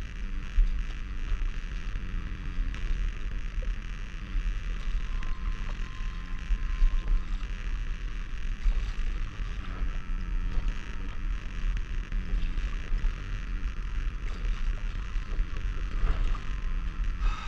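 Wind buffeting the microphone in a steady low rumble, over the wash of sea water around a stand-up paddleboard.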